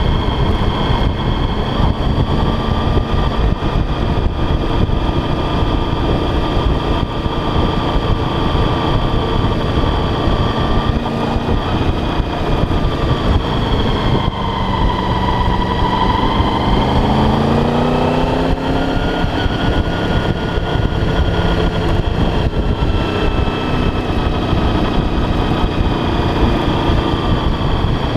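Motorcycle engine running under way, with steady wind rush on the microphone. About halfway through, the revs drop and then climb steadily as the bike accelerates again.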